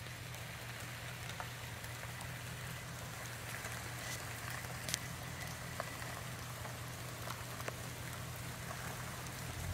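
Steady rain pattering on the forest leaves, with scattered drop hits close to the microphone and one sharper hit about five seconds in. Beneath it runs the low, steady hum of the Honda Ridgeline pickup's engine as it crawls down the muddy trail toward the microphone.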